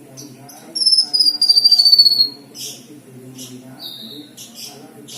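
Kinoi (cucak kinoy) songbird singing: a long, loud, high-pitched trilled note that slides gently downward, followed by short sharp chirps and a brief falling whistle.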